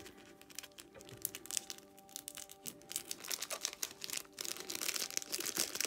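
Crinkly packaging being handled: a run of small crackles and rustles, growing denser in the second half, as a pack of stickers is taken out. Faint background music underneath.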